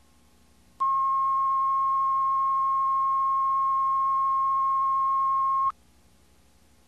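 A single steady electronic test tone on the videotape, a line-up tone over black. It starts abruptly about a second in, holds at one pitch for about five seconds and cuts off suddenly. A faint low hum sits underneath.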